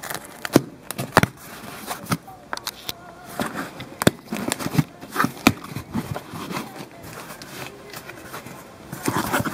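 A cardboard shipping box being cut and pulled open by hand: irregular sharp clicks and knocks over rustling and crinkling of cardboard and packaging.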